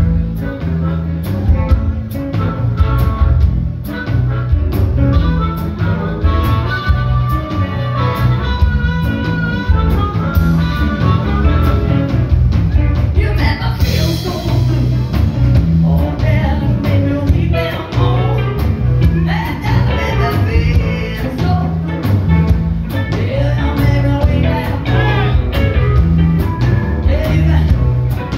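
Live blues band playing, with a harmonica solo over electric guitar, electric bass and drums. A cymbal crashes about halfway through.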